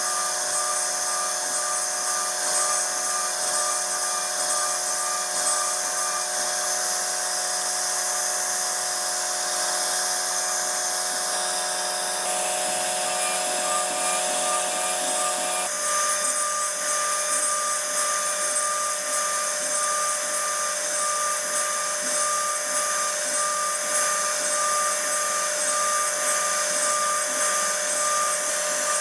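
CNC router spindle running at high speed, carving a 2.5D relief design into a wooden furniture panel: a steady high whine whose tone shifts twice as the cut changes.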